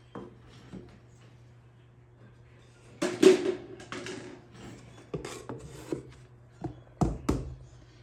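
Knocks, taps and short wet wiping sounds of hands working on a pottery wheel head, over a faint steady low hum. The loudest burst comes about three seconds in, and two sharp knocks come near the end.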